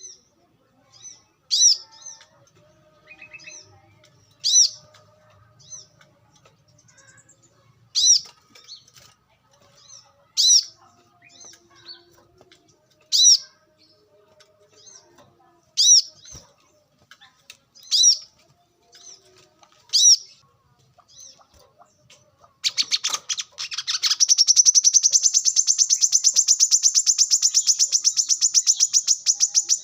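Brown-throated sunbird calling: sharp, high call notes about every two to three seconds with softer chips between. About three-quarters of the way through comes a long, very fast, high trill.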